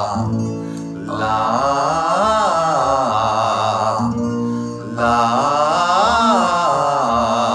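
Singing voice sustaining 'lah' notes with vibrato over held instrumental accompaniment, as a vocal triad warm-up exercise. There are two long phrases with a short break about four seconds in.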